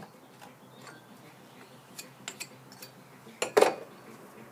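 A hand tool clinking against a metal sand-casting flask while the pouring hole is cut into the packed sand. A few light clicks, then two sharp metallic knocks in quick succession about three and a half seconds in.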